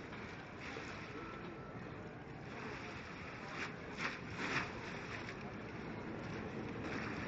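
Steady outdoor background noise of road traffic held up at the bridge, with a few short louder sounds about halfway through.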